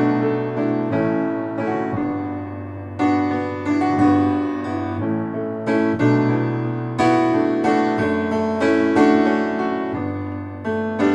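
Background music: an instrumental piano passage, notes and chords struck every second or so and left to ring.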